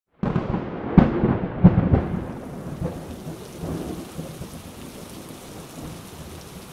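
Thunderstorm: thunder cracks sharply a couple of times in the first two seconds, then rumbles and fades away under a steady hiss of heavy rain.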